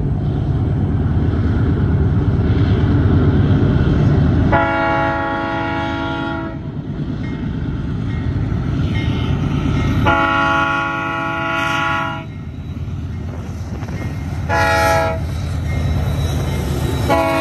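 Freight train's diesel locomotive air horn sounding a long, long, short, long sequence as the train approaches: two blasts of about two seconds each, a short blast, then a final long blast starting near the end. Under it runs a low rumble.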